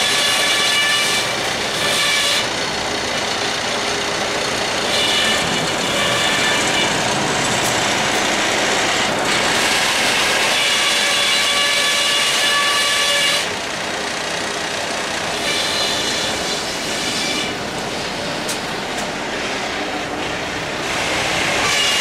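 Sawmill saws cutting through a log, with conveyor machinery running: a loud, dense sawing hiss with a high, steady whine that comes and goes several times.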